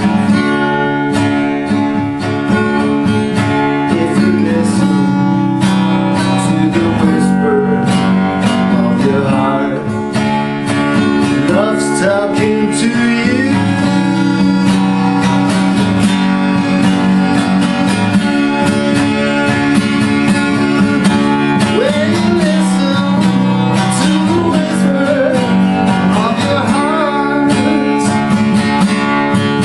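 Acoustic guitar strummed in a steady rhythm, an instrumental break between the sung lines of a song.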